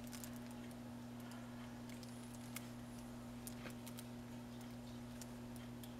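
Faint, scattered light clicks and ticks of something being handled, over a steady low electrical hum.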